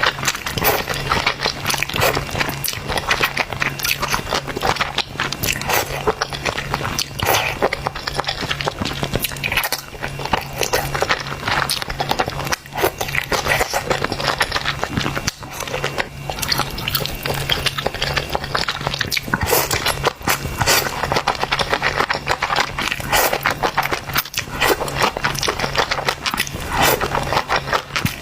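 A person eating noodles up close to the microphone: chewing and slurping, with irregular clicks and scrapes from the eating. A steady low hum sits underneath.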